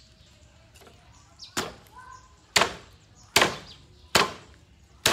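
Cleaver chopping through raw poultry onto a round wooden chopping block: five sharp chops, about one a second, starting about a second and a half in.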